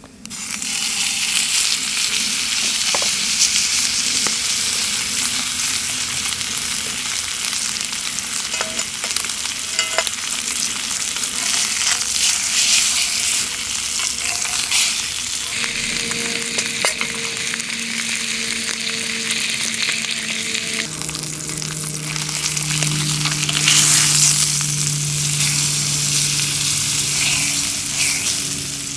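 Food frying in a pan: a steady, loud sizzle.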